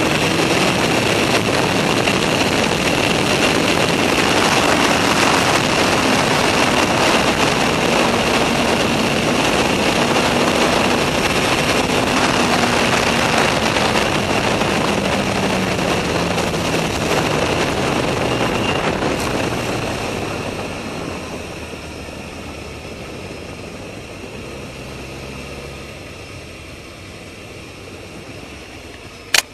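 Suzuki GSX-R 1000 K4's inline-four engine running at road speed under heavy wind rush, its note falling slowly as the bike rolls off. About two-thirds through, the sound drops to a quieter, lower engine hum as the bike slows, and a short sharp click comes at the very end.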